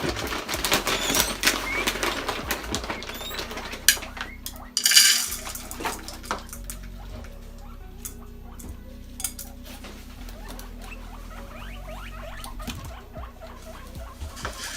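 Guinea pigs wheeking, the squeaky call they use to ask for food, amid rustling and light clatter; a loud rustle comes about five seconds in.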